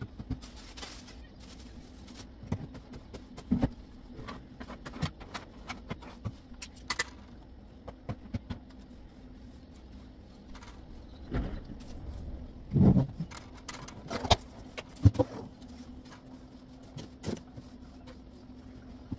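Household cleaning sounds: a broom on a tiled floor and objects being knocked and shifted, making scattered sharp knocks and clatters, loudest a little past the middle. A steady low hum runs underneath.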